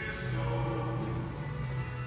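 Background music with slow, long-held notes and a sustained low note.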